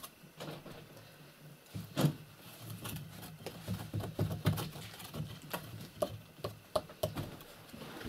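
Irregular scraping and small knocks of a red brick and mortar being worked by hand into a hole in a clay-and-brick stove wall.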